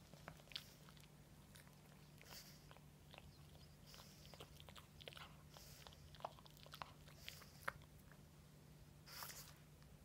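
Pug puppy chewing and gnawing a terry-cloth bath towel: faint, irregular soft clicks and short rustles of teeth and mouth working the cloth.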